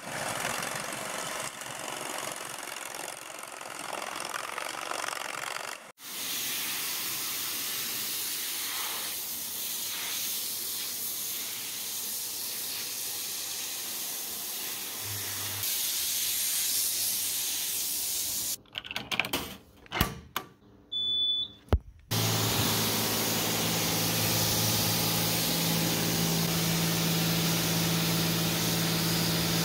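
Pressure-washer lance spraying foam and water onto a polyethylene vehicle tub: a steady hiss. It breaks up into a few short chopped bursts with clicks about two-thirds of the way through, then resumes over a steady pump hum. The first six seconds hold a different steady rushing noise that cuts off abruptly.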